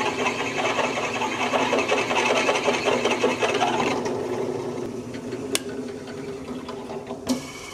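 Drill press boring through square steel tubing: the bit grinds and chatters steadily as it cuts the steel. About four seconds in the cutting noise drops away and the press runs on more quietly, with a sharp click a little later.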